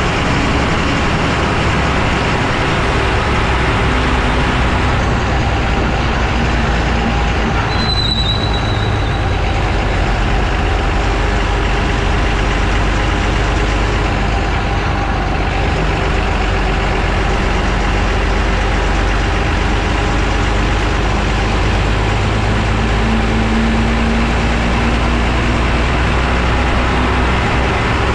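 Lorry on the move, heard from under its chassis by the front wheel: a loud, steady rumble of tyres on the road, engine and wind noise, with a brief high squeal about eight seconds in.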